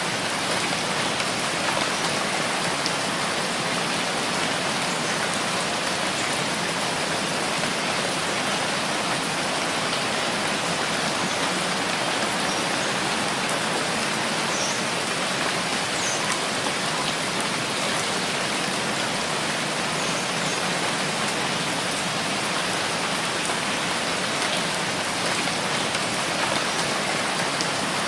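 Steady rainfall: an even hiss of rain falling on surfaces, with a few faint drip ticks here and there.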